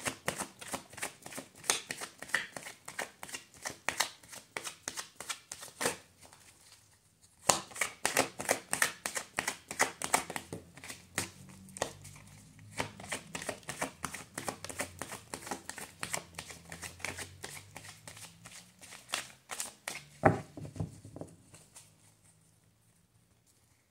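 A tarot deck being shuffled by hand: fast runs of papery card slaps and clicks. The shuffling stops for about a second and a half around six seconds in, resumes, ends with a sharp snap of the cards near the end, then dies away.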